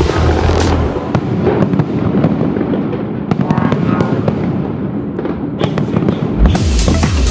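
Fireworks bursting, with many sharp cracks and pops in quick succession. Music plays under them; its deep bass fades about a second in and comes back near the end.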